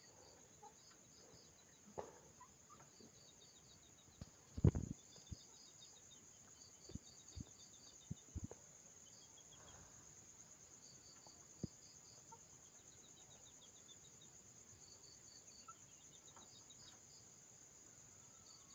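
Crickets chirping in a steady high-pitched chorus with pulsed, repeating chirps. A few soft knocks come through, the loudest a short cluster about four and a half seconds in.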